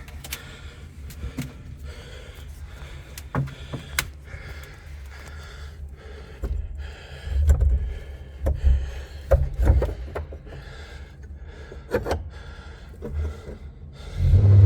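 A man breathing hard as he climbs, with scattered knocks and clicks from climbing and handling the camera, and several low rumbling swells.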